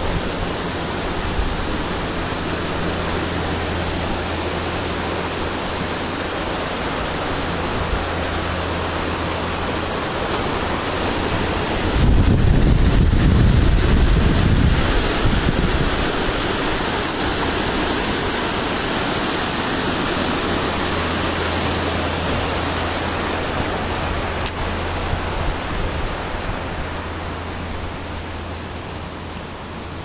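River water rushing over shallow rapids: a steady, even rush, with a louder, low rumble for about three seconds some twelve seconds in.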